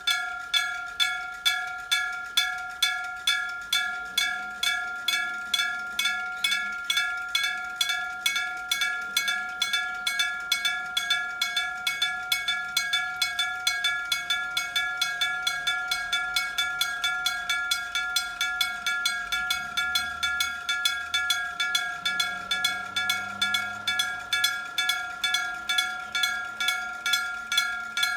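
Electric bell of a Japanese railway level crossing ringing: a bell struck by an electric hammer in a steady, even rhythm of roughly two to three strikes a second, each strike ringing on with several bright overtones. The ringing is the crossing's warning that a train is approaching.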